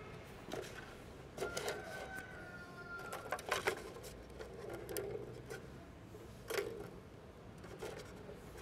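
Plastic ball rolling and rattling around the tracks of a three-tier cat ball-track toy, with sharp clicks and knocks as a cat's paws bat at the ball and the plastic tiers.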